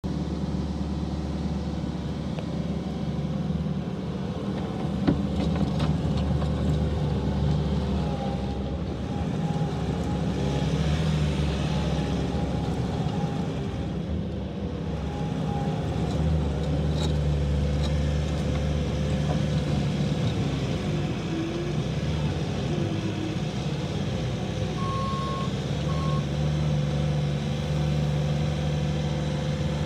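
Bobcat T870 skid steer loader's diesel engine running steadily, with a whine that rises and falls in pitch as the machine works. Near the end its backup alarm beeps a few times.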